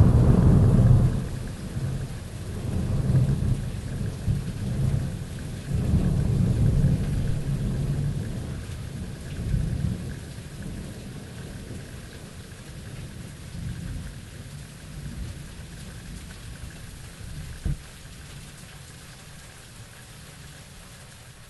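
Thunder rumbling and rolling away, swelling a few times in the first half, then fading slowly, over a steady hiss of rain. A single short sharp crack comes about three-quarters of the way through.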